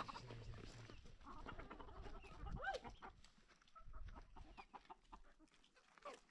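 Chickens clucking faintly, with one clear arched call about two and a half seconds in, among scattered light clicks.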